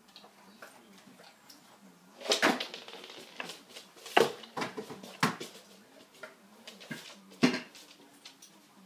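Knocks and clatter of dog-training platforms being handled: a plastic step stool taken away and a flat wooden platform set down, about four sharp knocks a second or two apart with smaller ticks between.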